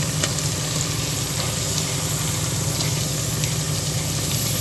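Chopped onion, tomato and green chillies sizzling in hot oil in a clay pot, with a few faint crackles, over a steady low hum.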